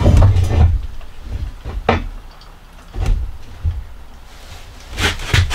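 Knocks and thumps of a heavy porcelain wall-mount sink being handled and seated on its wall bracket: a heavy low thump at the start, single knocks about two and three seconds in, and a pair of knocks near the end.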